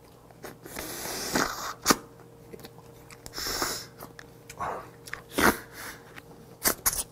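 Close-miked eating of cooked snow crab leg: several short slurping, sucking hisses as the meat is drawn out of the shell by mouth, with sharp lip-smack and chewing clicks in between.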